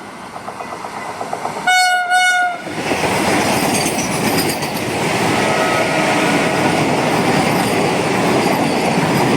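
Vande Bharat Express train set sounding its horn for about a second, two seconds in, over building wheel clatter, then rushing past at speed with a steady din of wheels and air.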